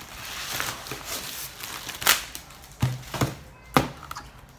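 Plastic mailer bag rustling as a cardboard box is slid out of it, then a few sharp knocks as the box is set down and handled on a glass tabletop.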